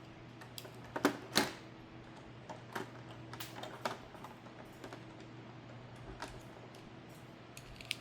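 Scattered clicks and taps from handling die-cast toy cars and their plastic packaging, with two sharper knocks about a second in, over a faint steady hum.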